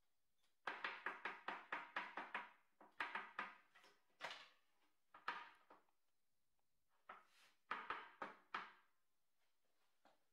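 Quick series of knocks as a bundle of shaving-brush hair is tapped down on the wooden workbench in a small metal cup, several rapid taps at a time with a short ringing after each. This is the tapping that evens the hair ends before the knot goes into the form.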